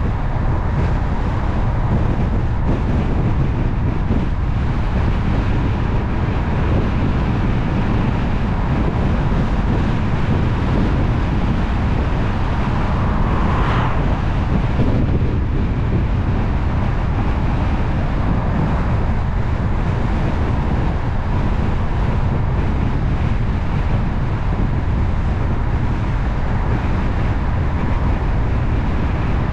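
Steady rumble of tyre and wind noise from a car driving along a paved road, with a short brighter swell about halfway through.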